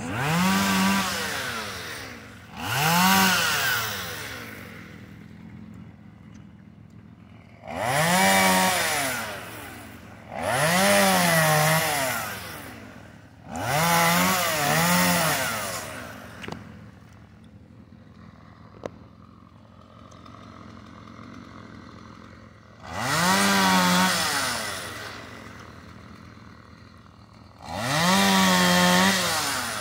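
Gasoline chainsaw revved up in seven bursts of about two seconds each as it cuts into a small tree trunk, the engine pitch rising and then falling back. Between cuts it drops back to a low idle.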